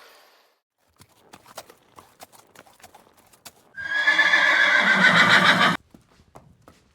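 Light scattered clicks, then a loud animal call of about two seconds with a slightly falling pitch that cuts off suddenly.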